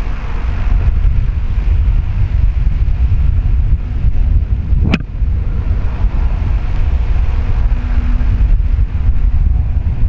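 Distant 2TE116 diesel locomotive with 5D49 engines working on an upgrade with a freight train: a low steady drone under heavy wind buffeting on the microphone. A single sharp click comes about halfway through.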